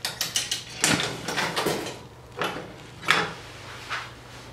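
Coin-operated water vending machine: a run of quick mechanical clicks, then several separate clunks, over a steady low hum.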